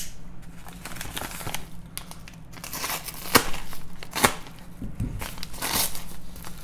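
Paper and cardboard packaging crinkling and rustling as a parcel is opened by hand, with a couple of sharp snaps about three and four seconds in.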